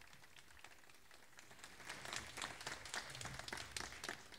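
Audience applauding: faint, scattered clapping that thins out near the start and fills in again from about two seconds in.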